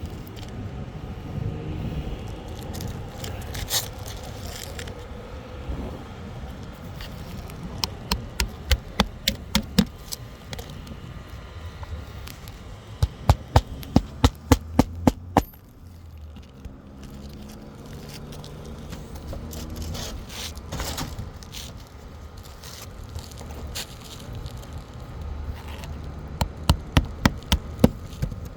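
Hand hammer driving roofing nails into a three-tab asphalt shingle: three runs of quick, evenly spaced blows, roughly six to eight strikes each, about a third of the way in, around halfway and near the end.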